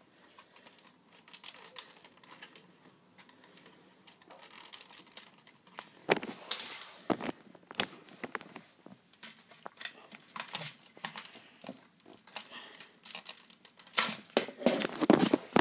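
Plastic Lego bricks clicking and rattling as hands handle a Lego Dino tank model and pull its inner compartment out, with scattered knocks and rustles that get busiest near the end.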